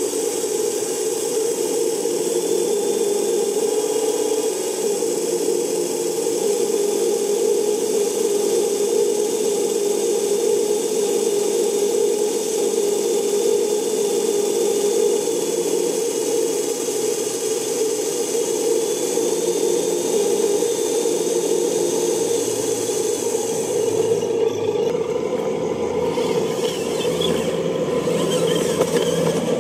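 Hydraulic pump of an RC Mercedes-Benz Zetros dump truck running steadily as the cylinder tips the loaded bed. The sound changes about three-quarters of the way through.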